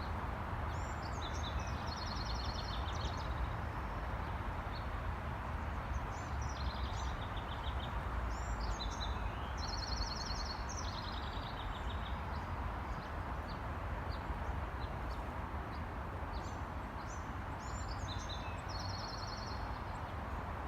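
A songbird singing several short phrases of quick trills and repeated notes, over a steady low background rumble of outdoor noise.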